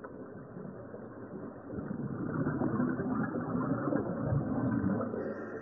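Scuba divers' exhaled bubbles rising past an underwater microphone: a muffled bubbling rumble that swells about two seconds in and eases off near the end.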